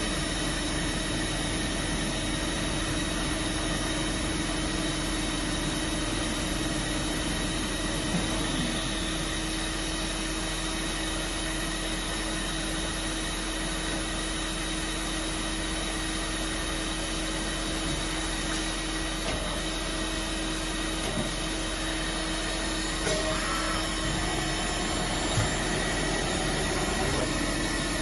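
Voumard 200 CNC internal grinder running: a steady machine hum with a steady high whine, and a few faint clicks near the end.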